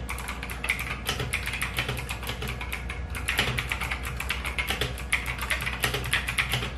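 Fast typing on a mechanical keyboard fitted with thick PBT keycaps in OEM profile: a quick, unbroken run of keystroke clicks.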